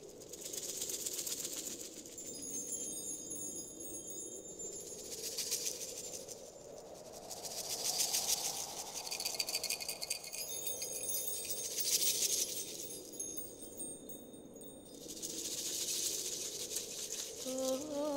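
Opening of a Balkan world-music track: shimmering rattles and chimes swell and fade in waves every few seconds over a faint low drone. A held, wavering note comes in near the end.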